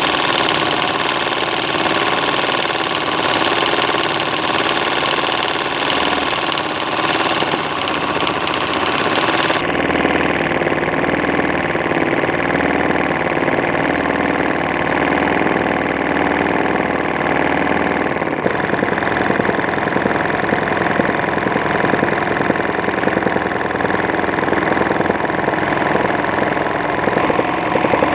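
Hand-guided embroidery machine running steadily at speed, its needle stitching gold thread into fabric held in a hoop. The tone of the running sound changes abruptly twice, about ten and eighteen seconds in.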